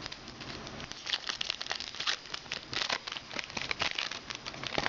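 Trading cards being handled and flipped through one by one: an irregular run of light rustles, slides and snaps of card stock.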